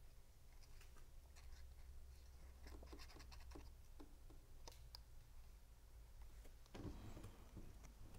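Near silence: faint rustling and light ticks of small cardstock pieces being handled and glued on a cutting mat, a little louder near the end, over a low steady hum.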